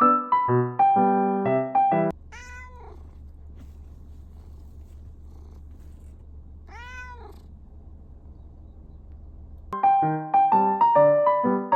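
A Munchkin kitten meowing twice, about four seconds apart, each meow rising then falling in pitch, over a steady low hum. Piano music plays before and after the meows.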